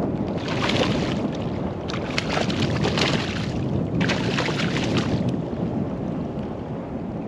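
A hooked fish thrashing and splashing at the surface of shallow water in three bursts, over a steady rumble of wind on the microphone.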